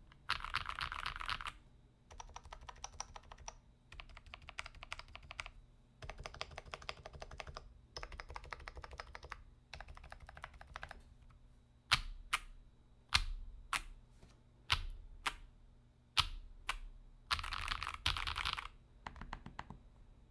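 Typing on a FancyAlice66 mechanical keyboard with lubed AEBoards Raed R2 linear switches, a polycarbonate plate and GMK keycaps: bursts of fast, dense keystrokes. About halfway through, the typing gives way to separate single key presses, each a sharp clack with a short decay.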